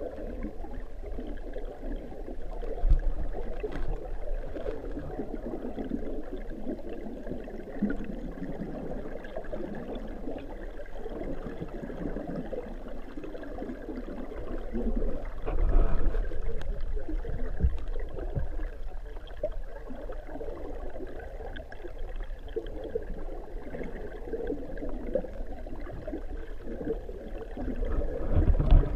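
Underwater rush and gurgle of water flowing through a fish ladder pool, picked up by a submerged GoPro, dull and low with a few louder low thumps.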